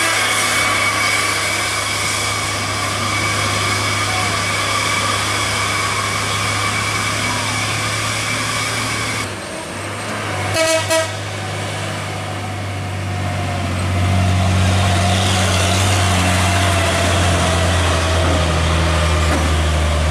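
Dump trucks' telolet horns sounding over their diesel engines: a steady multi-tone horn chord for about the first nine seconds, then two short horn blasts about eleven seconds in. From about fourteen seconds a truck's diesel engine grows louder under load as it pulls up the grade.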